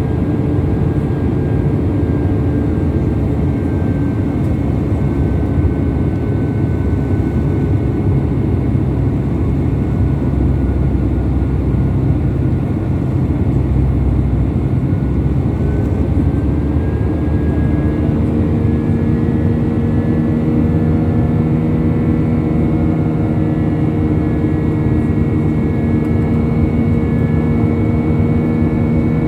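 Airbus A319 jet engines and rushing air heard from inside the cabin: a loud, steady roar with several held engine tones. About 18 seconds in, the engine note shifts and extra lower tones join.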